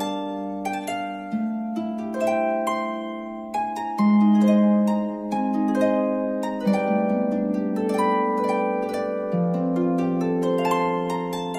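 Background music: a gentle melody of plucked, harp-like notes ringing over held chords, one new note after another.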